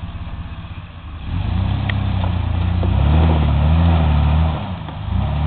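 Jeep Wrangler engine idling, then revved up about a second in as the rock crawler pulls itself up a rock ledge. The revs rise and fall under load and ease back near the end.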